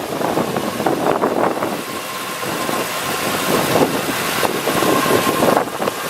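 A 2006 Ford F-150 pickup's engine idling steadily, with wind buffeting the microphone in gusts.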